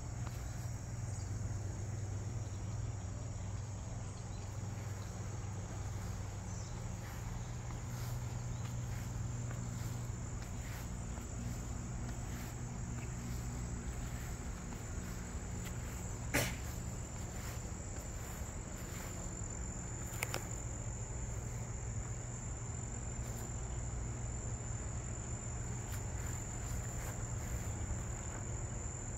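Insects trilling in a steady, high, continuous tone over a low steady hum. A sharp click a little past halfway, and a fainter one a few seconds later.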